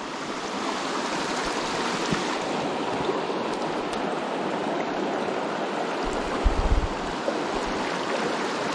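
Shallow river rushing and rippling over stones and gravel, steady throughout. A brief cluster of low bumps about two-thirds of the way through.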